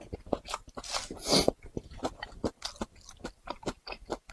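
Close-up chewing of a mouthful of rice with twice-cooked pork and dried tofu: many quick wet mouth clicks, with a brief louder hiss about a second in.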